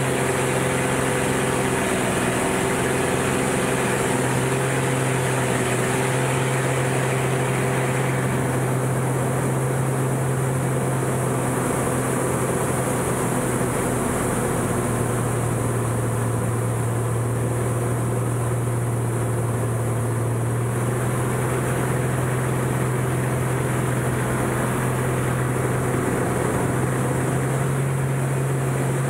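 Aerobatic monoplane's piston engine and propeller heard from inside the cockpit: a steady low drone with air hiss over it, the pitch dipping slightly about a third of the way in and rising again near the end as power changes through the manoeuvres.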